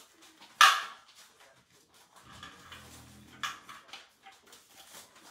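Puppies playing: a sharp yip about half a second in, a low growl a little past the middle and another short yip near the end, with light scuffling and clicks throughout.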